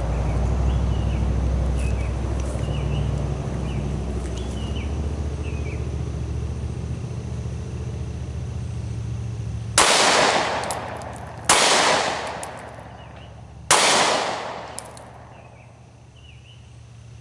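Three shots from a Glock 43 single-stack 9mm pistol, fired slowly as a Mozambique drill (two to the chest, one to the head): the first about ten seconds in, the next two following at gaps of about two seconds, each trailing off in an echo.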